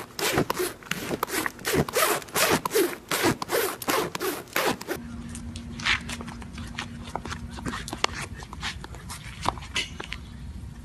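Rapid rhythmic rubbing and scraping right against the microphone, as a horse's muzzle and halter work against it, for about five seconds. It then cuts to a steady low hum with a few sharp taps.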